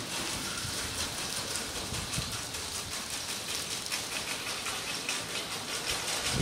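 Water from a garden hose spraying onto the sheet-metal roof of a kit shed, a steady hiss and patter of water on metal, as the roof is tested for leaks.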